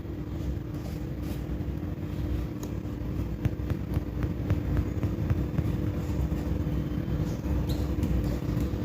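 Steady low background rumble with a constant hum, and a scattered handful of faint clicks and knocks.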